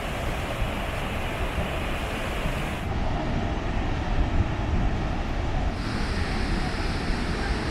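The Zambezi's rapids and falls at Victoria Falls rushing steadily as one dense, continuous wash of water noise. Its tone shifts abruptly about three and six seconds in, as the recording jumps between spots along the falls.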